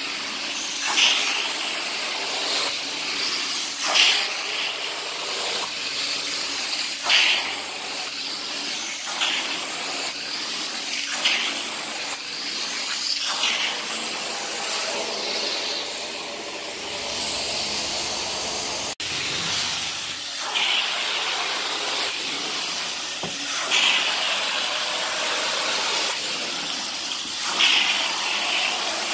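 Carpet extraction wand running: a steady hiss of suction and water spray that surges every two to three seconds as the wand is stroked across the carpet. The sound drops out briefly about two-thirds of the way in.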